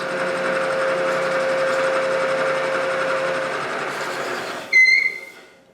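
Three-phase machine tool motor running from a phase converter with a steady hum, then winding down; a short high squeal near the end as it slows.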